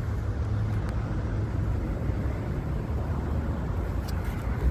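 Steady low rumble of a vehicle running, even throughout.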